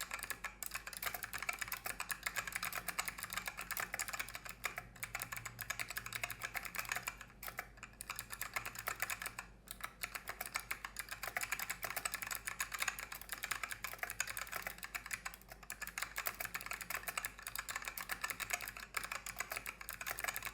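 Fast, continuous typing on a KBParadise V60 mechanical keyboard with white Fuhua switches and ungreased stabilizers, a dense run of key clicks with a couple of brief pauses.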